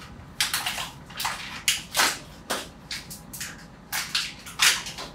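Plastic packaging rustling and crinkling in irregular handfuls as grooming products are rummaged through and a rubber massage brush is taken out. The loudest crinkles come about two seconds in and near the end.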